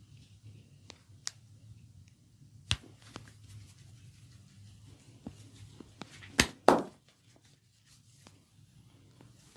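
Sharp cracks and pops from a Thai massage: a few light clicks, then two loud cracks in quick succession past the middle, over a low steady hum.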